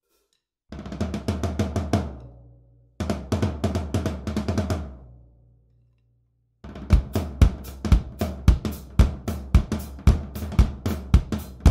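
Drum kit fitted with new Evans drumheads, played with sticks: two quick fills of rapid strokes, each leaving low drum tones ringing and fading. From about two-thirds through comes a steady groove of bass drum, snare and cymbal strokes.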